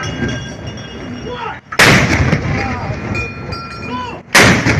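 Naval guns firing a ceremonial gun salute: two heavy shots about two and a half seconds apart, each a sudden loud boom followed by a long rumbling echo.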